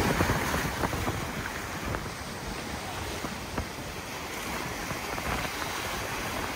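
Choppy sea surf washing and breaking, with wind buffeting the microphone.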